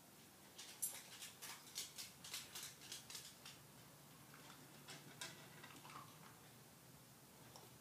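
Dog's claws ticking on a hardwood floor as it walks across the room, about four light clicks a second for a few seconds, then a few scattered ticks as it noses at a sheet of paper.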